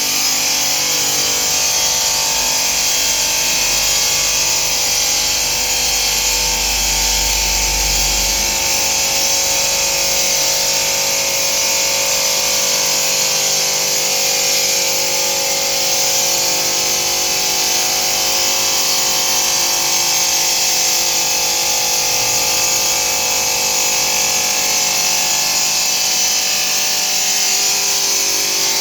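Stone-working machine running, a steady high grinding hiss with a constant machine whine. A low rumble underneath drops out about eight seconds in.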